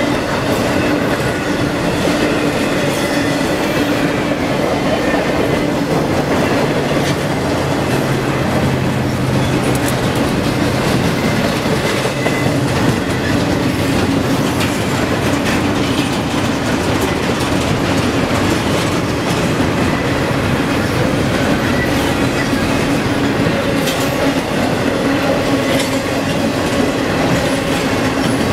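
Double-stack intermodal freight train's well cars rolling past: a steady rumble of steel wheels on rail, with clicking as the wheels cross rail joints.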